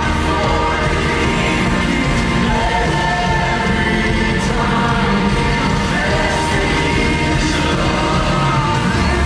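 Live contemporary worship music: a male lead singer over a band with acoustic guitar, playing steadily.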